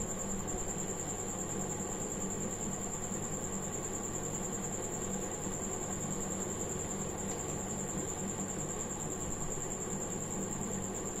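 Steady background hum and hiss of room noise, with a constant high-pitched whine above it and no distinct events.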